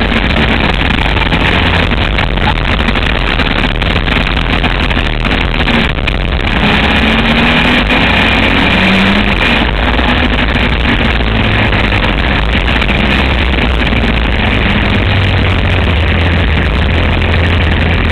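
Motor trike engine running hard at racing speed, heard from an onboard camera, with heavy wind noise rushing over the microphone. Its pitch rises and falls as the rider works the throttle about two-thirds of the way through.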